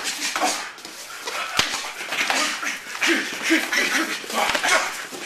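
Sparring in a cage: two sharp hits, about a second and a half in and again near the end, over a busy run of scuffling and short whining cries.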